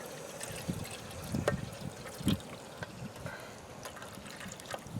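Water being poured and trickling into the Baro Stove's cooking container, with a few light knocks about one and a half and two and a quarter seconds in.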